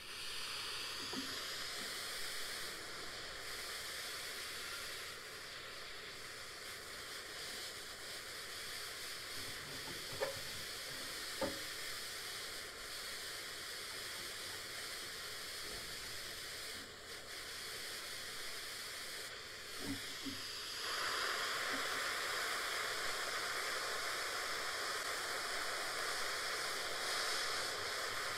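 Hand-held pencil torch burning with a steady hiss as its blue flame heats the soldered overflow tube on a tractor radiator to loosen it. The hiss grows louder and fuller about three quarters of the way through, and there are two faint ticks near the middle.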